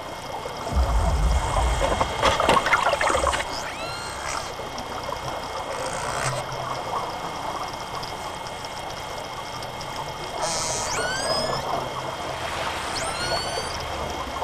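Killer whale calls heard underwater: short pitched calls that sweep up and then level off, one about four seconds in, a cluster of them around ten to eleven seconds and another near the end. A loud low rumble with crackling fills the first few seconds, and a steady hiss runs beneath.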